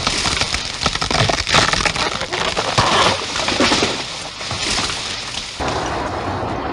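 Wood cracking and splintering as a tall conifer falls, a dense crackle of snapping strokes that stops abruptly about five and a half seconds in.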